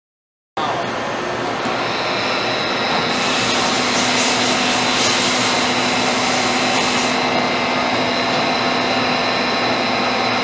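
McLean Model 750 production lathe running: a steady mechanical whir with a high whine over it, and a louder hiss for a few seconds in the middle.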